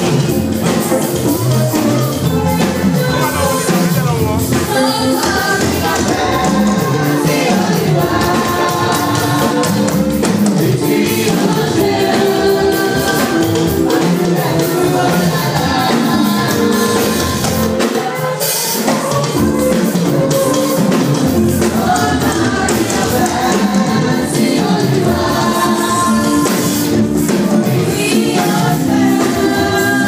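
Children's choir singing a gospel song together.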